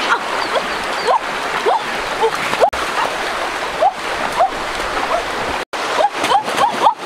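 Shallow stream rushing over rocks, with ducklings peeping in short repeated calls and water splashing as the duck is grabbed and carried.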